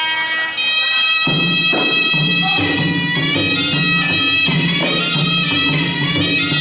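Traditional Khmer boxing music: a sralai reed oboe plays a sustained, nasal melody, joined about a second in by hand drums beating a steady rhythm.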